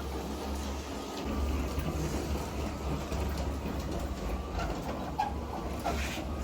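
Model freight train running along the track: a steady low hum with a few light clicks near the end.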